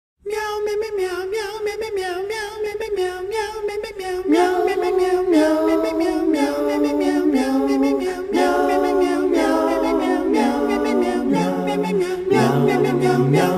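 Choir singing a cappella, several voices holding sustained notes in harmony that move to a new chord every second or so; the lowest voice drops lower near the end.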